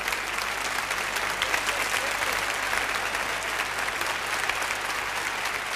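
Audience applauding steadily: dense, even clapping that neither builds nor fades.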